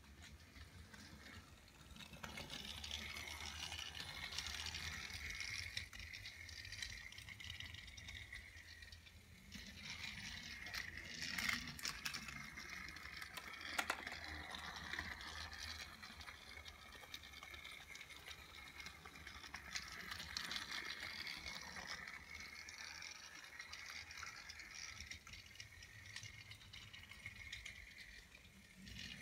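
Motorized Thomas & Friends TrackMaster toy train running along plastic track: a small electric motor whirring and the wheels rattling on the track sections, with a couple of sharper clicks partway through.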